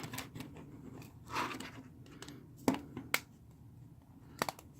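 Small sharp plastic clicks and a brief scrape from the phone's plastic frame and housing being handled and pressed together during reassembly.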